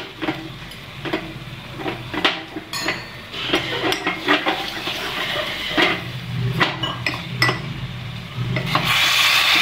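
Steel spoon scraping and clinking against a small stainless steel pot while stirring jaggery in a little water to dissolve it. A louder steady hiss starts near the end.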